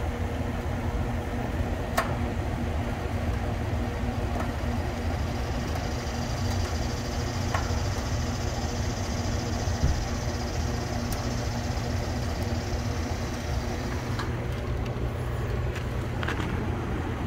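Steady low mechanical drone of a running machine, with an even hum underneath, and a few light metallic clicks of a Schrader valve remover on the condenser's brass service valves.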